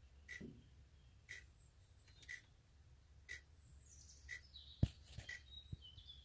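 Faint, regular ticking, one click about every second, over a low steady hum, with a single soft knock a little before five seconds in.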